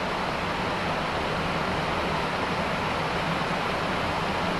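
Steady rushing noise of airflow and air-conditioning on the flight deck of a Boeing 767-300ER in flight, with a faint low hum underneath.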